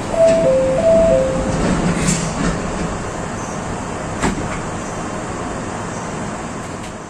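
A two-tone chime sounding high-low, high-low within the first second and a half, over the steady running noise of a train standing in a station. A couple of sharp clicks follow, about two and four seconds in.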